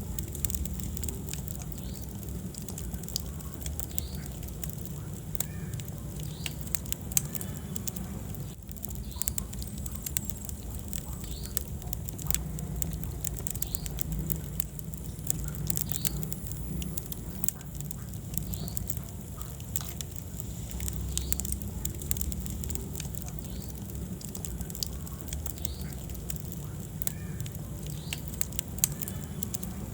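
Wood fire burning in a fireplace: a steady low rumble of flames with frequent sharp crackles and pops, including a louder pop about seven seconds in and another near the end.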